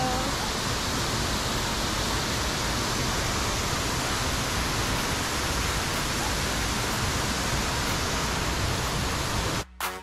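Waterfall rushing: a steady, even roar of falling water that cuts off just before the end.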